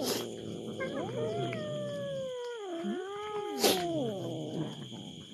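Two or more domestic cats meowing at once in long, drawn-out wailing calls that slide up and down in pitch, begging for the fish being handed out. Two sharp clicks cut in, one at the start and a louder one about three and a half seconds in.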